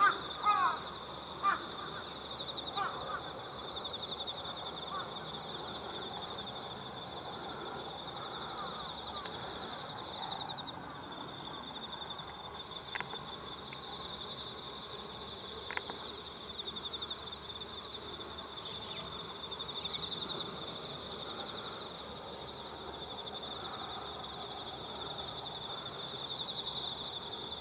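A steady chorus of crickets trilling, two pulsing high-pitched trills layered together throughout. A few crow caws sound in the first couple of seconds, then die away, and there are a couple of faint clicks partway through.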